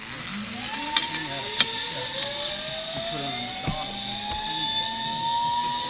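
Zip line trolley's pulleys running along the steel cable with a whine that rises steadily in pitch as the rider picks up speed. Two sharp clicks come about a second in.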